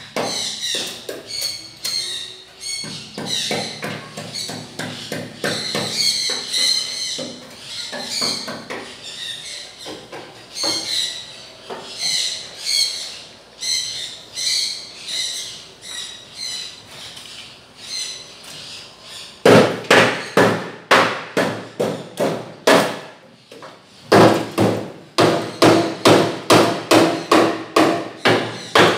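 Hammer striking metal. Lighter, ringing blows come first, then about two-thirds of the way in a louder, steady run of heavy strikes follows at about two a second, with a brief pause partway through.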